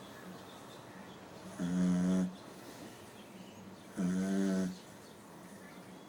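A sleeping dog snoring: two snores with a clear, hum-like pitch, each under a second long, about two and a half seconds apart.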